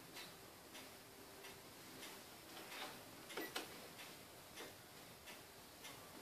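Faint, regular ticking, roughly three ticks every two seconds, with two louder clicks close together about three and a half seconds in.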